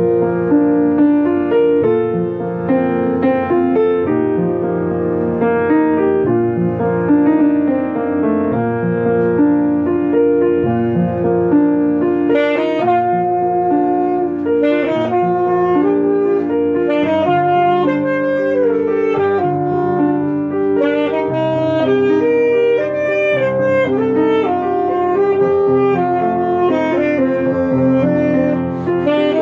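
Alto saxophone playing a melody over grand piano accompaniment.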